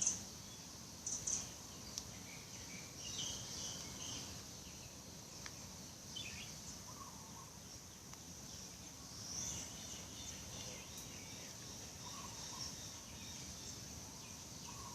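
Small birds chirping now and then over a steady high-pitched insect drone.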